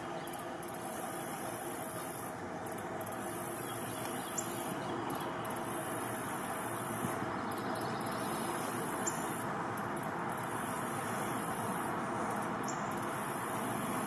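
Steady outdoor ambience: an even rushing noise with a constant, very high-pitched shrill band over it, and three faint, short, high chirps spread through it.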